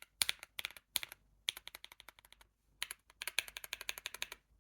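Typing on a mechanical keyboard fitted with a mix of Akko Cream Yellow Pro and Matcha Green switches under semi-transparent keycaps: quick runs of key clacks, with short pauses about a second and a half in and about two and a half seconds in.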